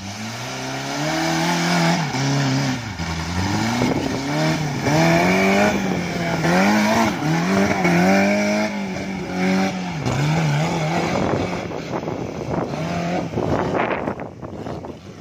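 Off-road race buggy's engine revving hard, its pitch rising and falling again and again as it is driven over the dirt track, easing off near the end.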